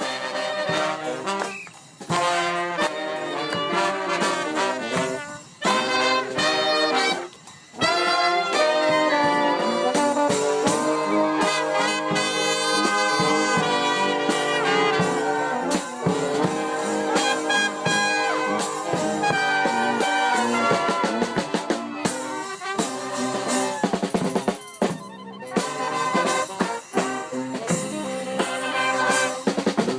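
Music with brass instruments and drums, jazz-like, with a few short breaks in the first eight seconds.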